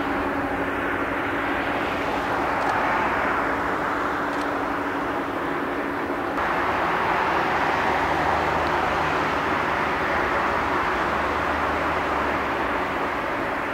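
Jet airliner engines at taxi power: an Airbus A319 rushing steadily with a low steady hum. About six seconds in the sound cuts abruptly to the engines of a Boeing 777 taxiing.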